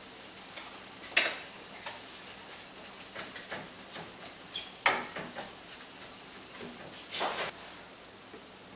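Greasy ground beef and wilted spinach sizzling in a stainless steel skillet while being stirred, a steady soft frying hiss. Three louder scrapes and clinks of the utensil against the pan come about a second in, near five seconds and just past seven seconds, the last one longer.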